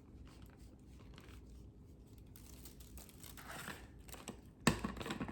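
Faint crinkling and rustling of gloved hands and a seasoning container as raw chicken wings are seasoned. A single sharp knock comes near the end.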